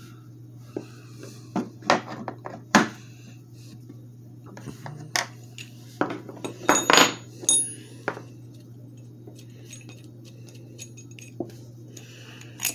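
Steel puller jaws, nuts and bolts clinking and tapping together as a slide hammer's three-jaw puller attachment is taken apart by hand, with a burst of ringing metal clinks about six to seven and a half seconds in. A steady low hum runs underneath.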